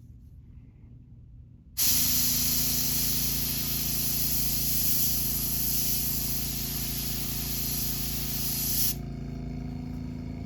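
Airbrush spraying paint onto a crankbait with a loud, even hiss that starts abruptly about two seconds in and cuts off about a second before the end. A steady motor hum runs underneath and stops shortly after the spraying.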